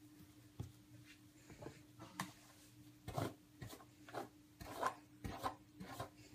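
Long hair being brushed and worked through by hand: a run of irregular short rustling, scraping strokes that get louder and closer together from about three seconds in, over a faint steady hum.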